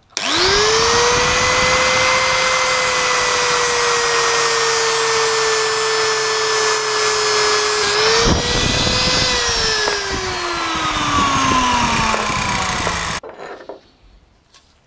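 Handheld angle grinder spinning up and grinding down a raised lip on a bike armrest bracket, its motor whine steady under the grinding noise. About eight seconds in it dips and picks up again, then it is switched off and the whine falls away over the last few seconds.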